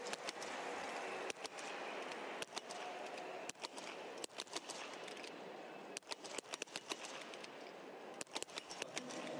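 Several small-bore .22 biathlon rifles firing on the prone range, many sharp cracks in quick, irregular succession. Behind them runs a steady crowd noise.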